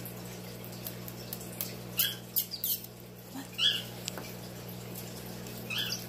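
Pacific parrotlet giving short, high squawks: a quick cluster of three or four about two seconds in, then single ones a second later and near the end. It squawks with its beak open at a teasing finger, a defensive threat.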